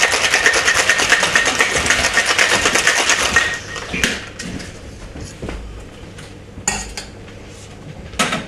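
Ice rattling fast inside a metal cocktail shaker being shaken hard, stopping about three and a half seconds in. A few sharp metallic clinks and knocks follow.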